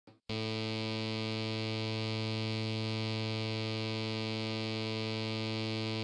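UberSaw v1.1, a custom supersaw oscillator on a Korg NTS-1 Nu:Tekt digital synthesizer, playing a single low, bright sawtooth note. The note starts sharply a moment in and holds steady.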